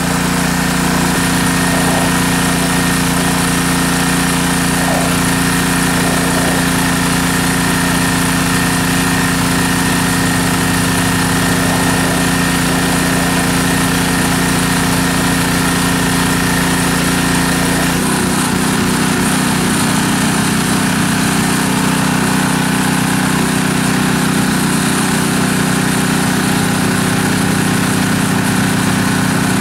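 Small engine of a pressure washer running steadily under load while the wand sprays into a flooded, muddy hole. About two-thirds of the way through, the engine note shifts and settles into a slightly different steady pitch.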